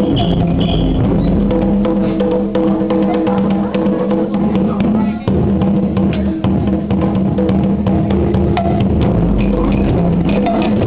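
A group of djembe hand drums played together in a dense, steady rhythm, with the deep beat of a large bass drum underneath.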